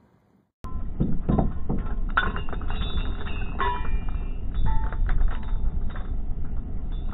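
Metal anchor chain and anchor clinking and rattling as they are handled on a fiberglass boat's deck, over a steady low rumble. The sound starts suddenly about half a second in.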